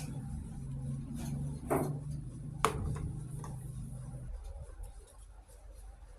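Small hard plastic toy kitchen pieces being handled, with a few light clicks and taps, two sharper ones about two and three seconds in. A low steady hum runs underneath and cuts off about four seconds in.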